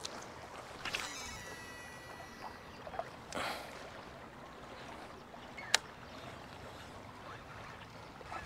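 Baitcasting fishing reel during a cast: a click, then a high whir from the spinning spool for about a second and a half, a short rush of noise, and a sharp click a few seconds later. A faint, steady water and outdoor background runs underneath.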